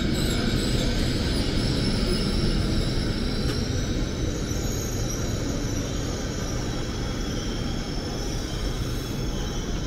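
Passenger coaches of an arriving train rolling slowly past, a steady rumble of wheels on rail that eases off a little, with faint high-pitched tones over it.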